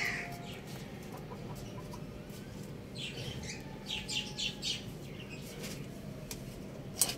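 Rooster giving a run of short clucking calls about three seconds in, with a single sharp click near the end.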